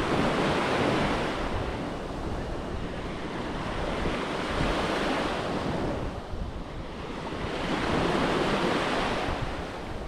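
Small sea waves breaking on a sandy beach, the wash swelling and ebbing three times, with wind buffeting the microphone.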